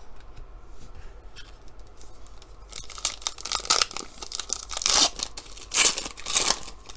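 A trading card pack's wrapper being torn open and crinkled by hand. It starts with a little light rustling, then from about three seconds in comes a run of loud tearing and crinkling bursts, the loudest near the end.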